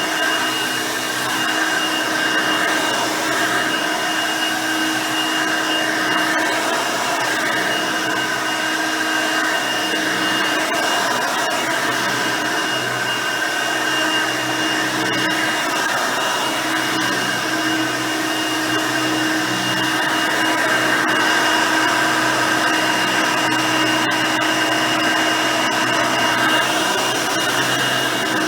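Hoover Elite High Performance upright vacuum cleaner running steadily, its 5-amp motor and nine-blade fan giving a steady whine with a high-pitched tone over a lower hum. The level wavers slightly.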